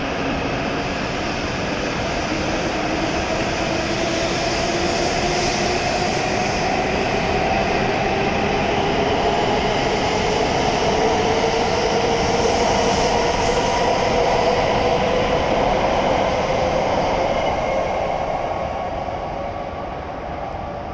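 W7 series Shinkansen train pulling away from the platform, its traction motors giving a whine that climbs slowly and steadily in pitch as the train speeds up, over running noise. The sound fades over the last few seconds as the last cars leave.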